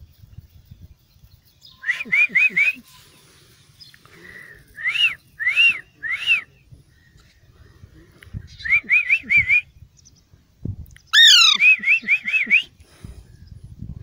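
Whistle exchange between a person and a young Alexandrine parakeet: runs of short, rising-and-falling whistled notes, three or four at a time. The loudest sound is a harsher call that sweeps down in pitch about eleven seconds in, followed by more quick notes.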